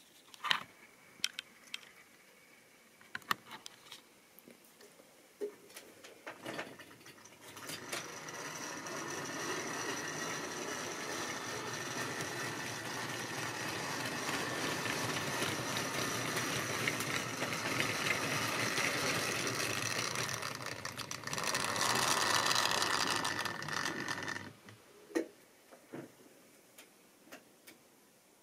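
Tri-ang model train running along the track: the wheels clatter steadily over the rails with a faint whine, growing louder as the wagons pass close, then cutting off suddenly. A few light clicks come before and after.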